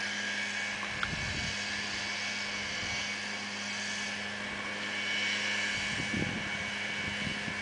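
Steady outdoor background hum and hiss, like a distant engine drone, with a faint click about a second in; no club strike in this stretch.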